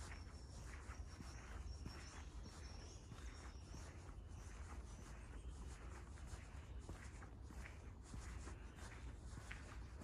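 Faint footsteps on a wet forest path, about two steps a second, over a steady low rumble.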